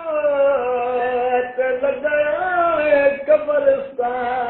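A man singing slow, long held notes that slide and waver in pitch, in a chant-like style.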